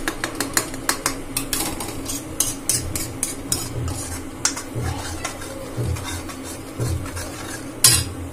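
Steel spoon scraping and clinking against a metal kadhai as thick masala paste is stirred while it fries in oil, cooked until the oil separates. Quick repeated strokes, with one louder clank near the end.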